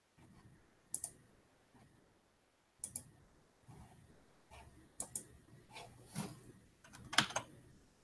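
Clicks of a computer mouse and keyboard: sharp clicks, mostly in quick pairs, about every two seconds, with soft rustling between; the loudest pair comes near the end.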